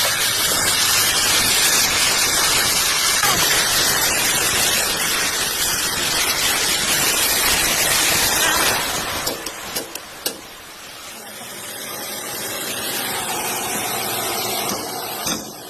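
Car running on the road with a loud, steady rush of road and tyre noise that drops away about nine seconds in, leaving a few clicks and then a quieter hum.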